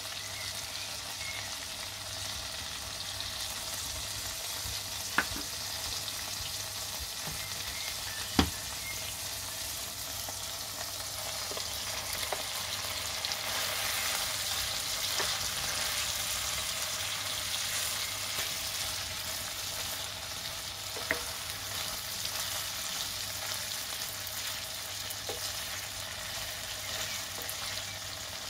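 Liver sizzling in a frying pan with apple slices and onions, stirred with a wooden spatula; the sizzle grows a little louder midway. Three sharp knocks stand out, the loudest about a third of the way in.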